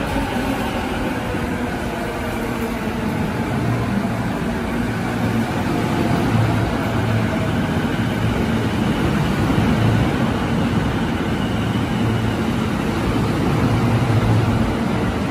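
JR East E233-series electric commuter train running past along a station platform: a steady rumble of wheels on the rails, with a faint electric motor whine falling in pitch over the first half as the train slows.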